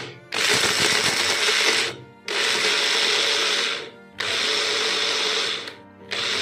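Electric mixer-grinder dry-grinding roasted almonds and cashews into powder, switched on and off in pulses: four runs of about a second and a half with short pauses between. Grinding in pulses keeps the nuts from giving off oil, so the powder stays dry.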